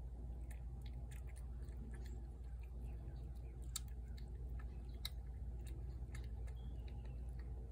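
A cat chewing and crunching food from a plate, a run of small irregular clicks with two sharper clicks near the middle, over a steady low background hum.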